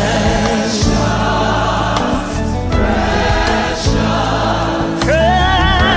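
Gospel choir with band, holding a long sung chord on the word "precious" over a steady bass. About five seconds in, a solo voice slides up into a held note with vibrato.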